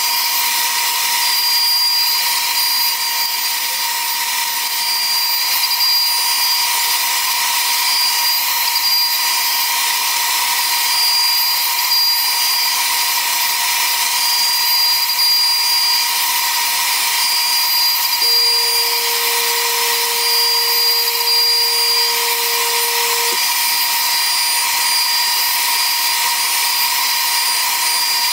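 CNC router spindle running with its bit cutting baltic birch plywood: a steady whine over a loud hiss. About two-thirds of the way through, a lower steady tone joins for about five seconds and cuts off suddenly.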